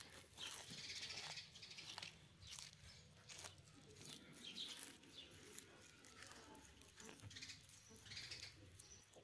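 Faint, scattered crackles and snaps of a tortoise biting and tearing a green leaf, with birds chirping now and then in the background.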